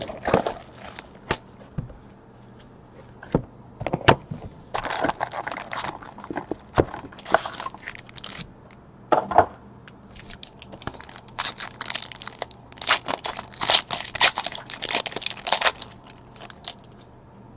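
Cardboard trading-card hobby box being opened and its foil card packs handled and torn, crinkling and tearing in irregular bursts with a few sharp clicks. The crinkling comes thickest in the second half.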